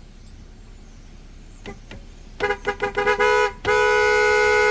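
Two-note vehicle horn: a rapid string of short honks about two and a half seconds in, then one long, steady blast.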